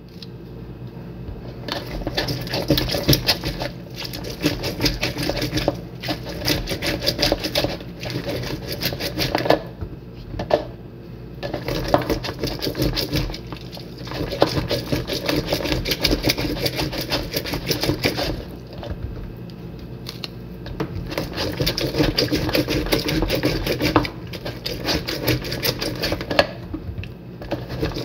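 An orange half is twisted and pressed down on a plastic hand citrus reamer to juice it. It makes a rapid, rhythmic rasping in bouts of a few seconds, with short pauses between them.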